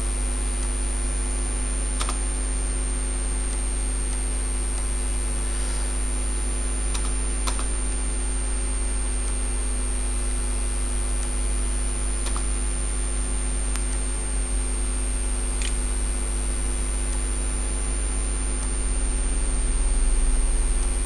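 Steady electrical mains hum with a thin high whine over it, and a handful of short clicks a few seconds apart from a computer mouse as points are placed on a curve.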